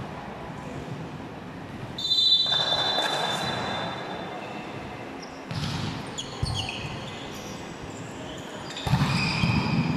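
Volleyball match in a large hall. A referee's whistle sounds about two seconds in, then come the knocks of the ball being served and played and short squeaks of shoes on the court floor. A louder burst of players' voices follows near the end.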